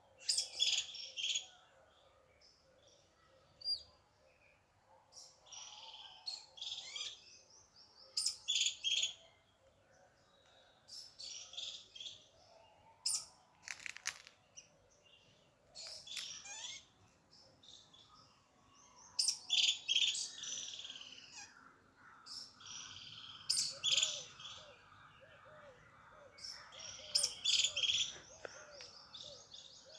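Songbirds chirping and singing in short, bright phrases that repeat every few seconds, with a fainter, lower, wavering call underneath in the last few seconds.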